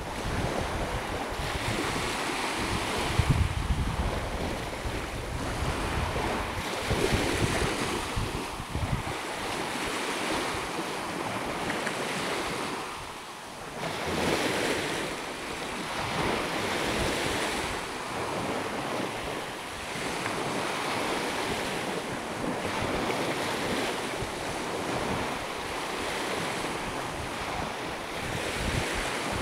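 Small waves breaking and washing up a sandy beach, swelling and ebbing. Wind buffets the microphone throughout, most heavily in the first several seconds.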